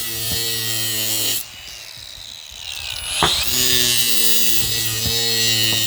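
Ryobi ONE+ cordless angle grinder running free at speed. It is switched off about a second and a half in and winds down, then is triggered again about 3 s in, spins up, runs steadily and stops near the end.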